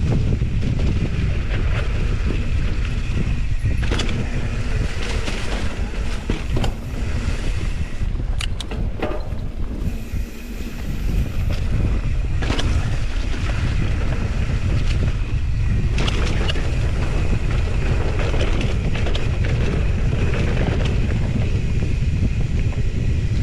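Wind buffeting an action camera's microphone as a mountain bike rides a rough dirt trail at speed, a steady deep rumble. Occasional knocks and rattles from the bike over bumps come through it.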